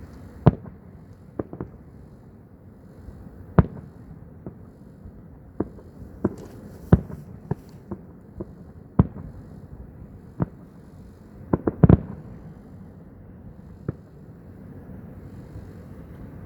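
Fireworks shells bursting in irregular sharp bangs over a low background rumble. A quick cluster of several bangs comes about twelve seconds in and is the loudest.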